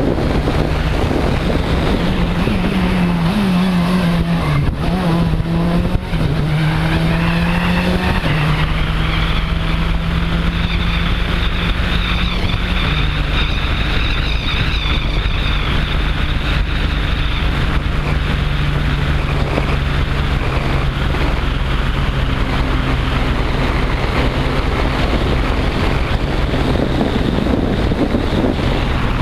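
Citroën DS3 WRC rally car's 1.6-litre turbocharged four-cylinder engine heard from outside the car while it drives. The engine pitch changes several times in the first eight seconds or so, then holds fairly steady at a moderate pace, with air rushing over the microphone.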